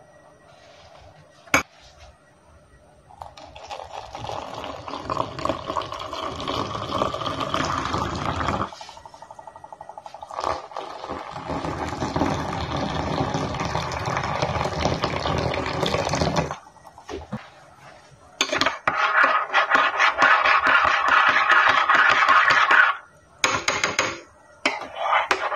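A spoon taps once against a ceramic mug, then water is poured into the mugs in two long pours of several seconds each. In the last few seconds a spoon stirs the coffee with quick, rapid clinks against the mug, with short pauses.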